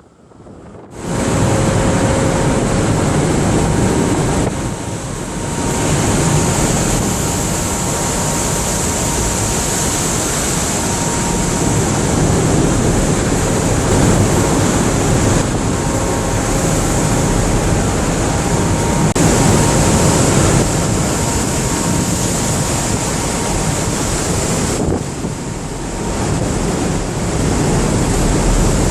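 Loud steady rush of sea water and wind, with wind buffeting the microphone; it starts abruptly about a second in. A faint steady hum runs beneath it.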